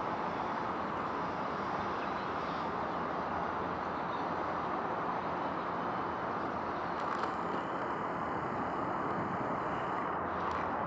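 Steady outdoor background noise, an even hum like distant road traffic, with no clear single event.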